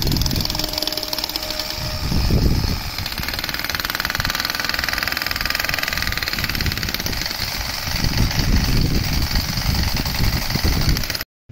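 An engine running steadily, with a fine rapid pulse, under uneven low rumbling like wind on the microphone. The sound cuts off abruptly near the end.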